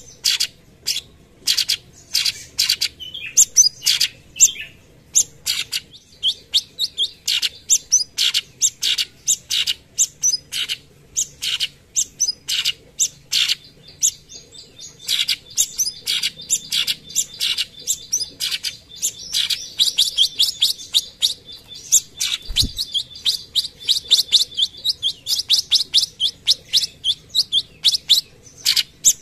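Cucak cungkok, a leafbird, singing its rapid-fire 'tembakan' song: short, sharp chattering notes several a second, running almost without a break. A single brief low thump sounds about two-thirds of the way through.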